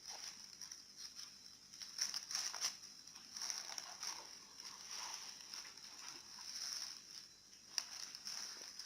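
Plastic packaging rustling and crinkling in irregular bursts as the handbags are handled and unwrapped.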